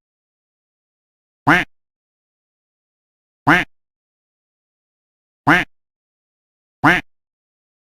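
Duck quacking: four short, identical quacks, about two seconds apart, with dead silence between them.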